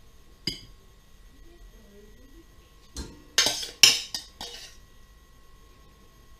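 A metal spoon and a metal saucepan clinking and scraping together as sauce is scooped: a single light knock near the start, then a quick run of sharp ringing clinks about three to four and a half seconds in.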